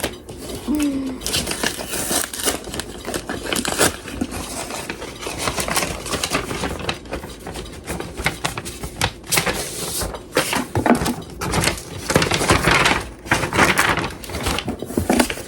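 Papers and packaging being handled and shuffled: irregular rustling with light clicks and clatters of small items.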